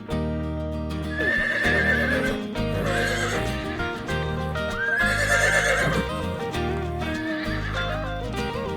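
Horse whinnying several times, each call a high, quavering neigh, over background music.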